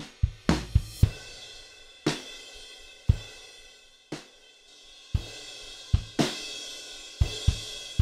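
Recorded drum kit playing a slow, heavy groove: kick, snare and ringing cymbals, about one big hit a second. It is heard through a mix, with the room microphones being switched in and out to show how much size and ambience they add.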